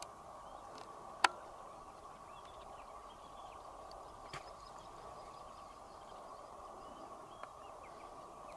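Quiet dry-bush ambience: a steady even hum, faint bird chirps, and one sharp click about a second in, with fainter ticks later.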